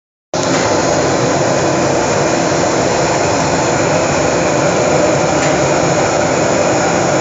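Steady loud rushing noise of a pan of water with cubed tofu at a rolling boil on a gas stove, starting abruptly a moment in.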